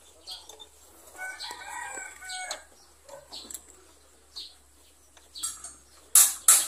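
A rooster crows once, a single drawn-out call about a second in, over faint scattered ticks. Near the end, loud sharp rattling strokes begin.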